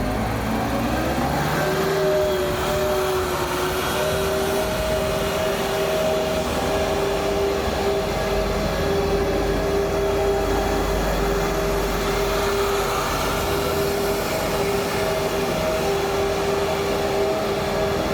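A 4WD rough-terrain forklift running steadily, its engine rumbling under a steady two-note whine that settles in during the first couple of seconds.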